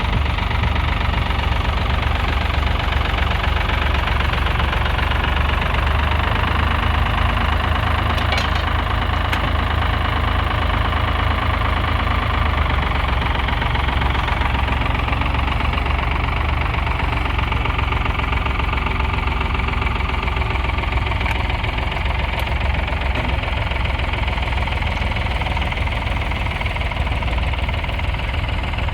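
1968 Ford 4000's 3.3-litre three-cylinder diesel engine running steadily.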